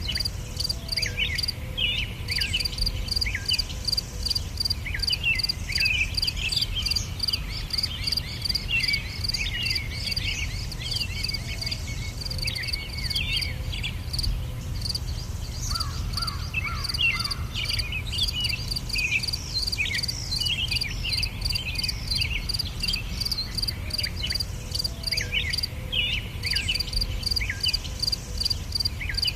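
Tropical forest ambience: an insect chirps in an even, rapid pulse, pausing briefly twice, while birds give many short sweeping chirps over a steady low rumble.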